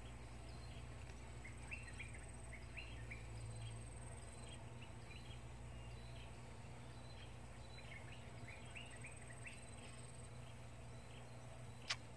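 Quiet natural ambience: a faint steady high insect buzz with two runs of short chirping calls, and a single sharp click near the end.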